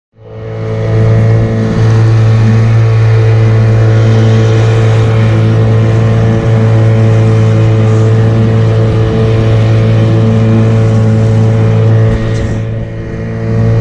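Boat's outboard motor running at a steady cruising speed, a loud, even drone. It fades in over the first second and eases off briefly near the end.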